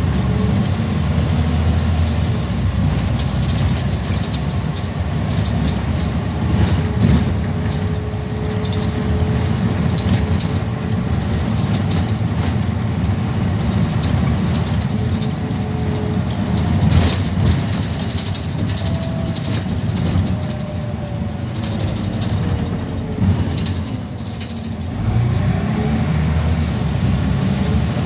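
Scania N94UB single-decker bus's diesel engine running as the bus drives, heard from inside the passenger saloon, with rattles of the body and fittings and faint whining tones that slide up and down. The sound drops briefly about four-fifths of the way through, then picks up again.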